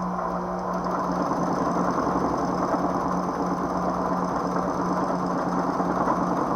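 Singer 281-1 industrial sewing machine running steadily under power, stitching a hem in thick vinyl through a 1/4-inch hemmer foot.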